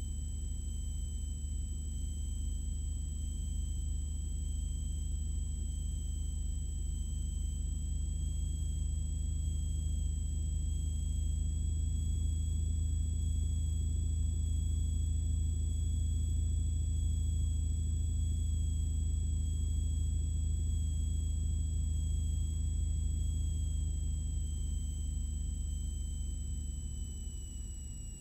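Cessna 182RG's six-cylinder Lycoming engine and propeller droning steadily in the cabin, heard through the intercom with a thin high whine above it. The drone and the whine ease off together near the end.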